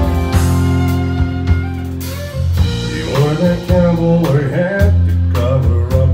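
Live country band playing an instrumental intro: drum kit, electric and acoustic guitars, with a fiddle carrying a bending melody line partway through.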